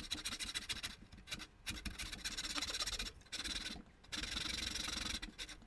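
Back saw cutting through a wooden scoop blank, sawing away the excess wood on its sides in runs of quick strokes broken by a few brief pauses.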